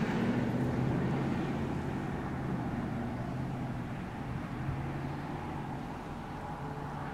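Strasburg Rail Road No. 90, a 1924 Baldwin 2-10-0 steam locomotive, approaching under steam: a steady rumble with a low, held hum running through it.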